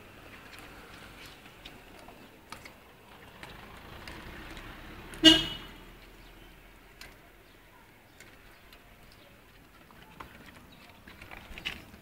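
A single short vehicle horn toot about five seconds in, over low street noise with scattered faint ticks.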